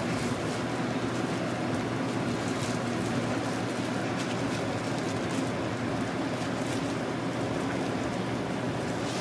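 Hot oil sizzling steadily in a hotteok frying tray, with a steady low hum.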